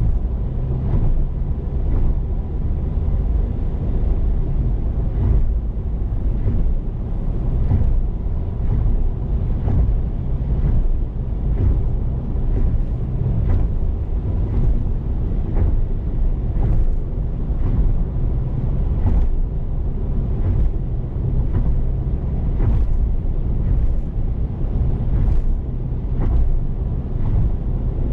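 Steady low rumble of road and tyre noise heard from inside a moving car, with frequent faint irregular ticks over it.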